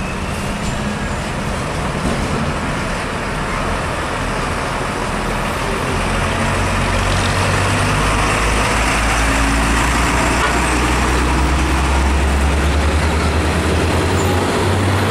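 Diesel engine of a Hino 500 tractor unit hauling a shipping container, pulling under load and growing louder from about six seconds in as the truck comes close and passes, over steady road traffic noise.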